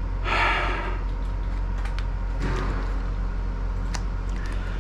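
Steady low hum of room ambience with a short rustle near the start, a fainter rustle past two seconds, and a few light clicks, as a leather wallet and card are handled.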